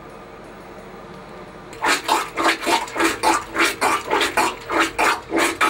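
Rubber toilet plunger pumped rapidly in a water-filled toilet bowl, sloshing the water in quick, even strokes about three a second, starting about two seconds in.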